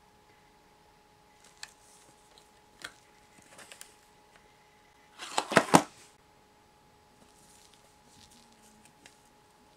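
Hands unpacking a small metal candy tin from its clear plastic packaging: a few light clicks, then a loud cluster of plastic crackles and clicks about five seconds in, with faint rustling after.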